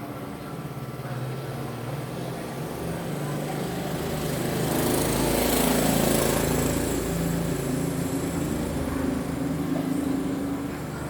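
An engine running, swelling louder to a peak about five to six seconds in and then easing off.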